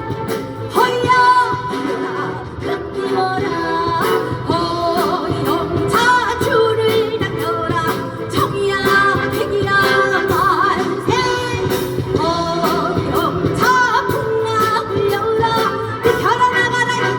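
A woman singing a trot song with a wavering vibrato over an accompaniment with a steady beat.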